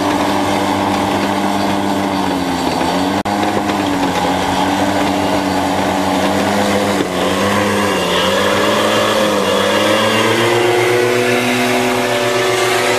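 Paramotor engine and propeller running close by, the engine note dipping and rising several times as the throttle is worked, then climbing higher near the end.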